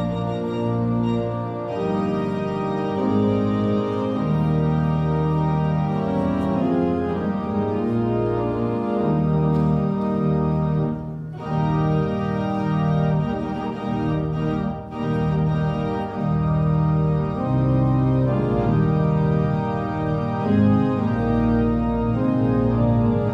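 Organ playing slow processional music in long, held chords that shift every second or two.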